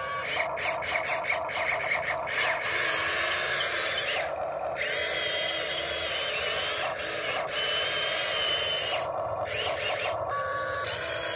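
Huina 1592 RC excavator's electric motors whining as it slews and moves its arm and tracks, with rapid clicking over the first couple of seconds. The whine cuts out briefly twice, as one movement stops and the next begins.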